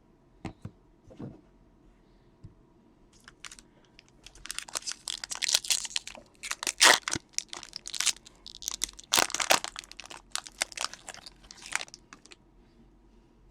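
Baseball card pack wrapper being torn open and crinkled, a dense run of crackling and tearing that starts a few seconds in and stops near the end, after a few light clicks at the start.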